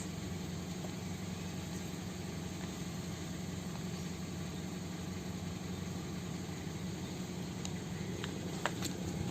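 Car engine idling steadily, a low even hum, with a few faint clicks near the end.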